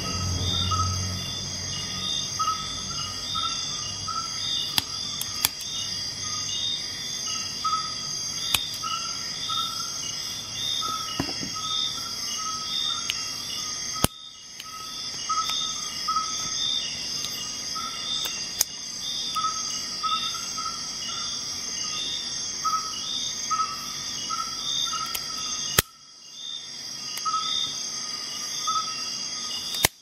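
Outdoor insect chorus chirring steadily, with a short call repeating every second or less and a few sharp clicks. The sound drops out briefly twice and returns unchanged.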